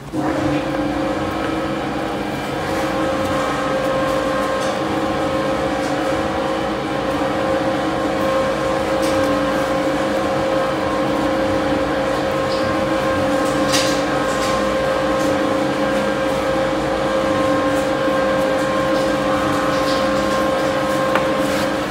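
A loud, steady machine hum with several fixed tones, switching on abruptly and cutting off at the end. A few faint knife ticks on the cutting board sound through it.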